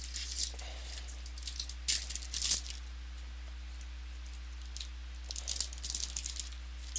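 Football trading cards and their packaging being handled: short clusters of crinkling and rustling at the start, around two seconds in and again from about five to six seconds in, over a steady low electrical hum.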